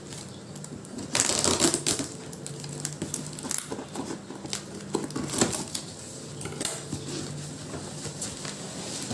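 A cardboard carton being opened and unpacked: loud rustling and tearing of cardboard and packing about a second in, then scattered clicks and knocks of dishes being handled.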